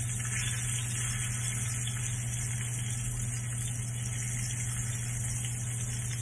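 Fish pieces shallow-frying in oil in a stone pan, an even steady sizzle, over a constant low hum.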